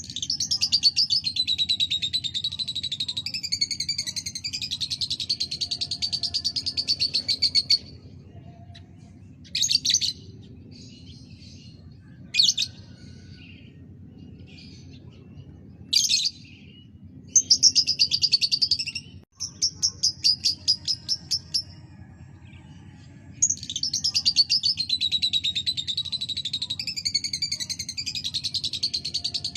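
Lovebird singing in long, rapid chattering trills: one long run at the start, short bursts in the middle, and another long run near the end, over a steady low hum. This is a lovebird 'pancingan', a bait song played to set other lovebirds singing.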